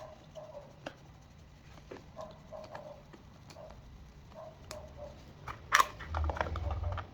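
Scattered light clicks and taps of parts being handled while a supercapacitor module is taken apart, with a sharper clack about six seconds in followed by a second of low rumbling handling noise. Faint short chirps sound in the background.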